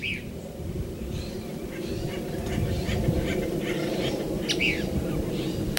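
Acorn woodpeckers giving a string of short, harsh calls, with two louder downward-sweeping calls, one at the start and one about four and a half seconds in, over the steady low drone of an airplane passing overhead.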